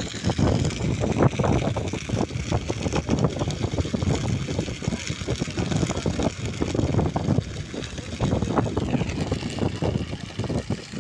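Fire burning through a field of dry standing crop: a loud, steady rumble with dense crackling throughout.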